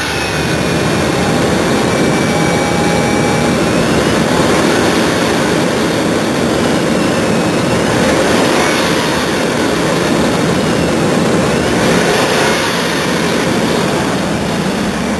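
The 5.4-litre Triton V8 of a 2003 Ford Expedition running steadily, with a faint whine that rises and falls now and then.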